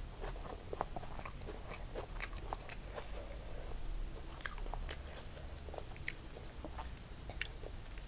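Close-miked eating sounds: chewing with crisp little crunches, and fingers mixing fried rice with clicks and crackles.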